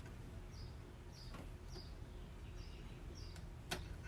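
Small bird chirping repeatedly over a low steady background rumble, with a sharp click near the end.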